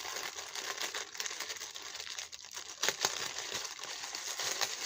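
Packaging crinkling and rustling while accessories are handled out of a phone box, a run of small ticks with one sharper click about three seconds in.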